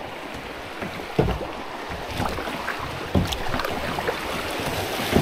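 Kayak paddling on river water: steady splashing and running water, with two stronger paddle splashes about two seconds apart.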